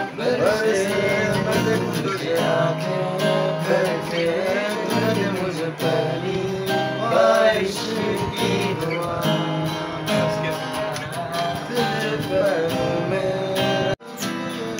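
Acoustic guitar being strummed while young men's voices sing along, in a casual group singalong. The sound breaks off abruptly for a moment near the end, then picks up again.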